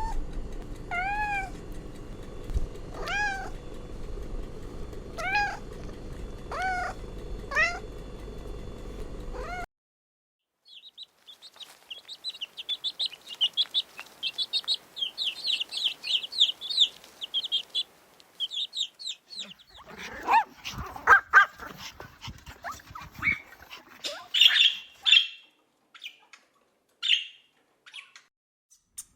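A cat meowing, about seven short meows over a steady background hum, which cut off suddenly about ten seconds in. Dense, rapid high-pitched chirping follows, then a jumble of squeaky calls and clicks.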